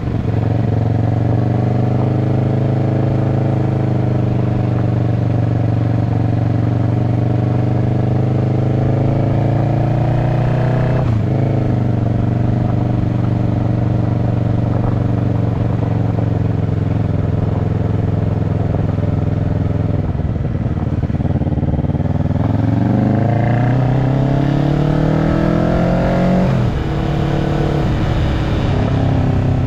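Kawasaki Ninja 650 parallel-twin engine running through an aftermarket slip-on exhaust, mostly steady with gentle swells in pitch and a brief dip about a third of the way in. Near the end it revs up in a rising climb, then drops back suddenly.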